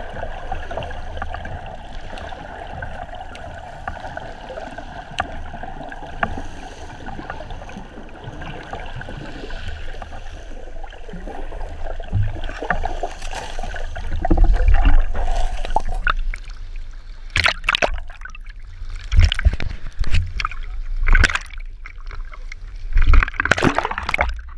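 Water heard underwater by a diver's camera: a steady muffled hiss, then, about two-thirds of the way in, about five loud splashes and gurgles as the diver breaks the surface among bubbles.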